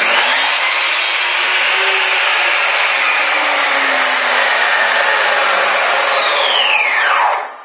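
Virutex TM 33L miter saw running at full speed as it crosscuts a parquet piece. About four seconds in its motor is let go and the whine falls steadily as the blade spins down, dying away near the end.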